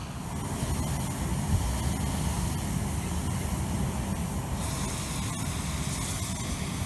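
Hot air balloon propane burners firing: a steady hissing rush over a low rumble, growing brighter about four and a half seconds in.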